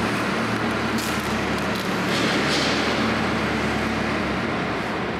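Farm tractor with a front loader running and working, a steady low engine hum with a broad rushing noise over it; the low hum drops away about four seconds in.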